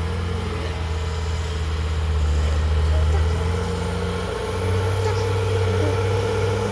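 Diesel engine of a heavy construction machine running steadily at a low pitch, its note stepping up a little about four and a half seconds in as the engine speeds up.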